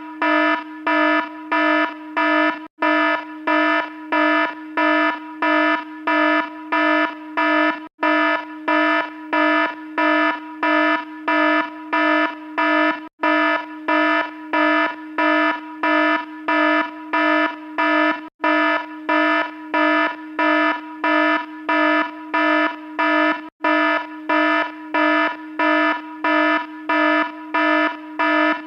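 Electronic alarm sounding continuously. It beeps about twice a second over a steady lower tone, with a brief cut about every five seconds where the recording loops.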